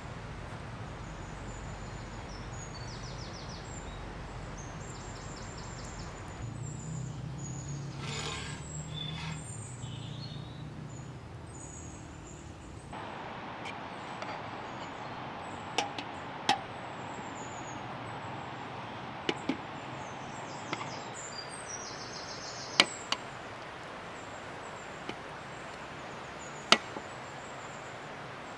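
Steady outdoor background hiss with faint high chirps. From about halfway, a scattered series of sharp single knocks, some in quick pairs, like hard strikes during outdoor cooking work.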